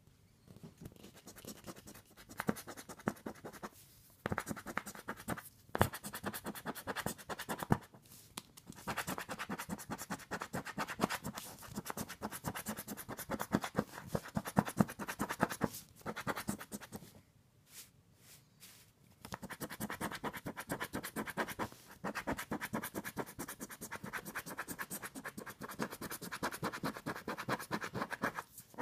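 Scratching the coating off a $20 Deluxe 7's Playbook scratch-off lottery ticket in rapid strokes. The strokes come in bouts, with short pauses and one longer pause a little past the middle.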